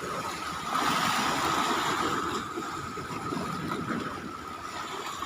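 Sea waves surging and washing in at high tide, a dense rushing wash that swells about a second in and slowly eases, with a faint steady high whine underneath.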